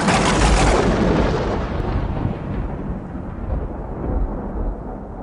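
A sudden loud, rumbling boom that slowly dies away over several seconds, its deep rumble lasting longer than its hiss.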